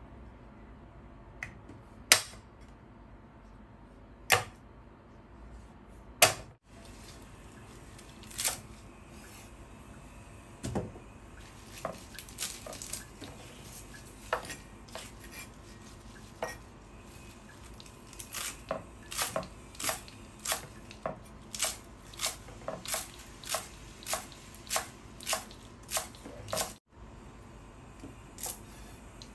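Steel cleaver striking a wooden cutting board as shallots are crushed and herbs chopped: three loud separate blows about two seconds apart, then after a cut a steady run of lighter chops, one to two a second.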